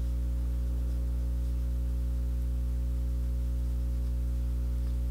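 A steady low hum with a stack of overtones, holding one pitch at an even level.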